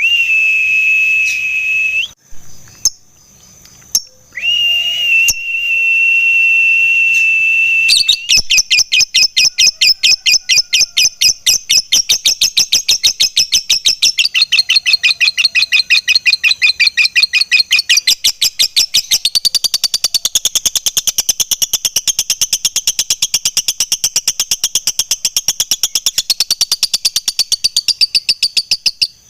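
Lovebird singing: long held high whistle notes, then from about 8 seconds a long, fast run of evenly spaced chattering notes, the 'ngekek panjang' (long ngekek) of a fighter lovebird, going without a break for some twenty seconds.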